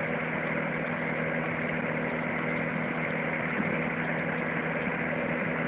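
Electric fan heater running, a steady hum with the rush of its blowing air.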